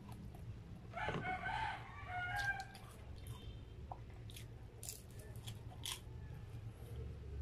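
A rooster crowing once, starting about a second in and lasting nearly two seconds. Later come a few sharp clicks and smacks from eating with the hands.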